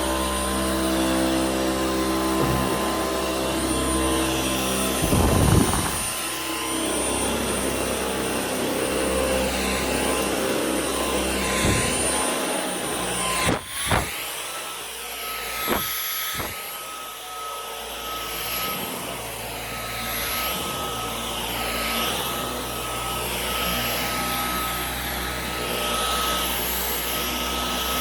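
Dyson Outsize cordless stick vacuum running, a steady motor whine with a rushing airflow that swells and fades as it is worked back and forth. A few knocks are heard. About halfway through the sound dips briefly, and the whine comes back at a higher pitch.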